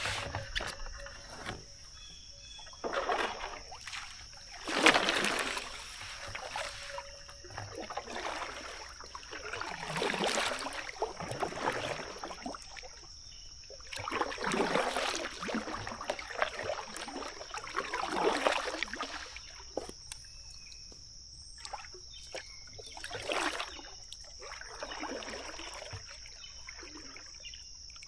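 Kayak paddle strokes in river water, a swishing splash with dripping every two to three seconds, over a steady high-pitched insect drone.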